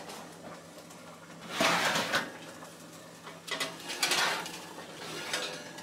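An oven door being opened and a metal baking sheet slid out over the wire oven rack: two short noisy sounds about two seconds apart.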